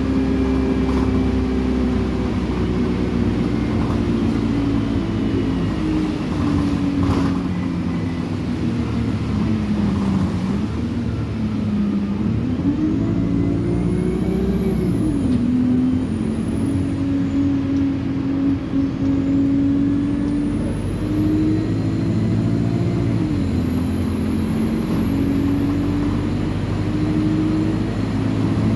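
Alexander Dennis Enviro200 single-deck bus heard from inside the saloon: its diesel engine and Voith automatic gearbox pulling, the engine note dropping and rising several times as the bus changes speed, with a thin high whine rising and falling above it and climbing steadily near the end.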